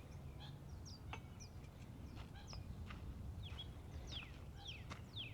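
Small birds chirping faintly, many short high chirps that slide downward in pitch, scattered irregularly, over a steady low background rumble.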